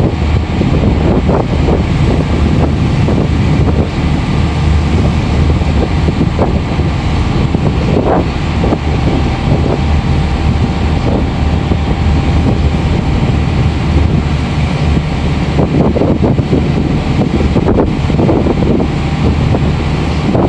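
Strong wind buffeting the phone's microphone over the steady low hum of the support vessel YF2125's engine running under way.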